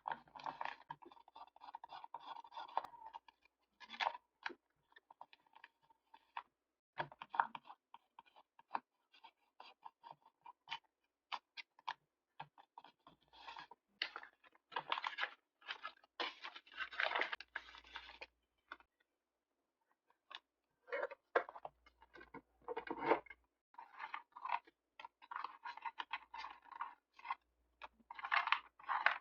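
Paper being handled for diary decorating: irregular bursts of crinkling, rustling and scratching, with a short pause about two-thirds of the way through.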